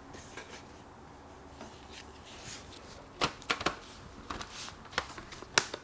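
Keys on a Retina MacBook's keyboard being pressed: a handful of separate sharp clicks, starting about three seconds in.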